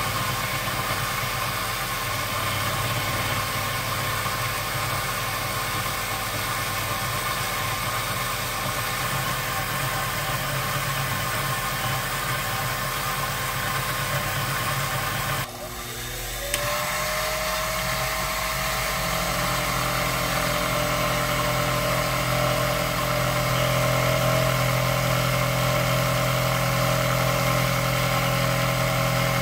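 Sherline benchtop milling machine running steadily as its end mill takes light passes, cutting a keyway along a metal shaft. About halfway through the sound drops out for a moment, then the machine carries on with a steady whine added.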